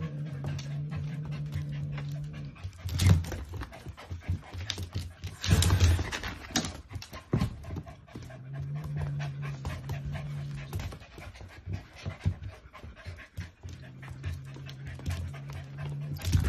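Dogs panting close up, with a long, low, steady growl heard three times. Two short harsh noisy bursts come about three and six seconds in.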